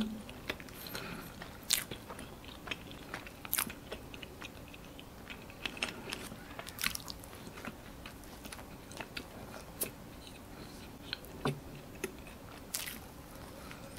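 Close-miked mouth sounds of a man chewing a soft white-bread strawberry jam-and-cream sandwich: wet chewing with many short sharp clicks and smacks scattered irregularly throughout.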